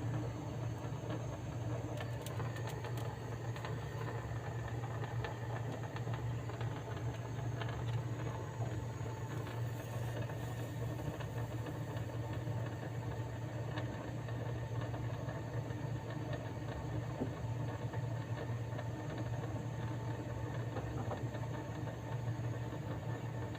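A steady low hum that runs unchanged, with a faint background hiss and a few light ticks.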